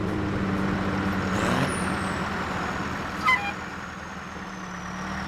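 Semi truck running steadily, with a thin high whine sliding slowly down in pitch and a quick run of short falling chirps about three seconds in.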